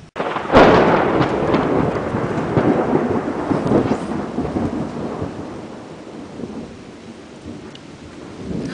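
Close thunderclap: a sudden sharp crack about half a second in, then a crackling, rolling rumble that slowly dies away over several seconds.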